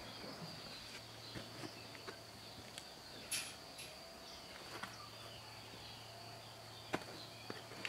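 A steady high-pitched insect drone with faint bird chirps, and a few light clicks and taps as a new diesel fuel filter cartridge is handled.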